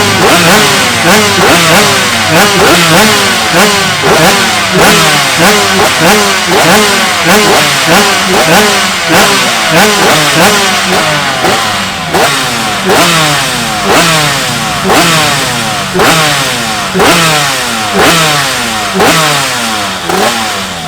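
Two-stroke racing motorcycle engine revved in repeated short throttle blips, the pitch climbing and dropping back each time. The blips come about twice a second, then slow to about one a second in the second half.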